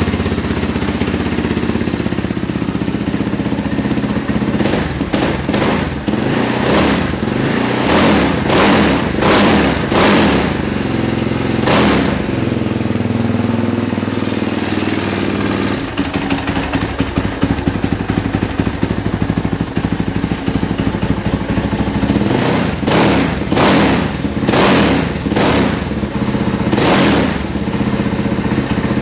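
Polaris Outlaw 525 ATV's single-cylinder four-stroke engine idling through Pure Polaris dual slip-on exhausts with the quiet cores fitted. It gets a string of quick throttle blips a few seconds in and another several near the end. The garage echo makes it sound louder than it is.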